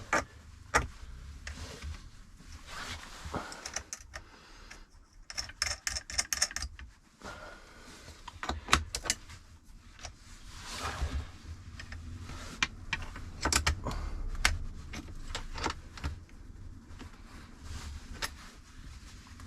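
Spanner working a nut off a leisure battery terminal: irregular metallic clicks, clinks and scraping as the nut is loosened and taken off.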